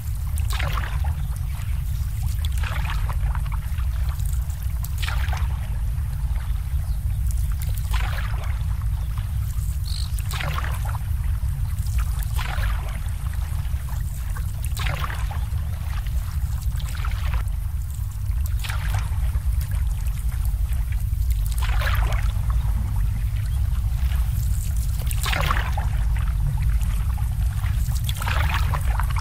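Small waves lapping and splashing against moored boats' hulls and the dock every two to three seconds, over a steady low rumble.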